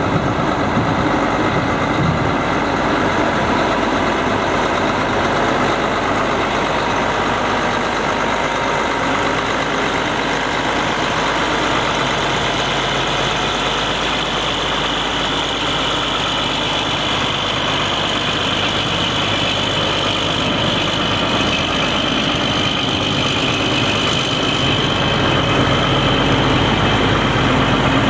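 John Deere 9400T track tractor's diesel engine idling steadily, with a high whine that comes up through the middle and fades near the end.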